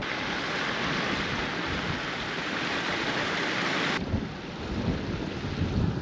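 Small waterfall splashing over rock steps in a moorland beck, a steady rush of water. About four seconds in it cuts off abruptly to wind gusting on the microphone over a quieter flow of water.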